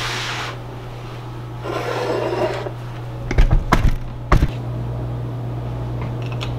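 Rustling and handling noises, then a short clatter of sharp knocks from a metal saucepan being set down on a glass-top electric stove, over a steady low hum.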